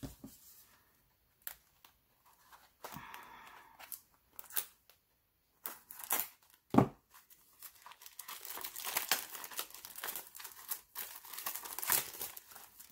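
Clear plastic wrap being torn and peeled off a small packaged item by hand, crinkling, with scattered crackles at first and dense, continuous crinkling in the second half. A single knock about halfway through, likely the item set down or bumped against the table, is the loudest moment.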